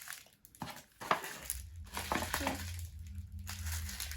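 Toy packaging wrappers being crumpled and crushed by hand as rubbish is gathered up, in irregular crackles.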